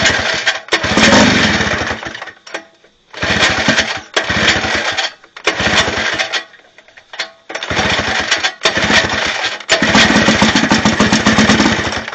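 Small old outboard motor being pull-started and firing, running in about five short bursts of one to two seconds and stopping between them: the engine is catching now that its ignition points have been sanded and readjusted to restore spark.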